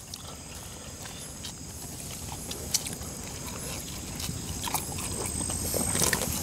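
Close-miked chewing and mouth noises of people eating crispy smashed fried chicken and rice by hand: wet smacking with scattered small crunches and clicks, made loud by the clip-on microphones.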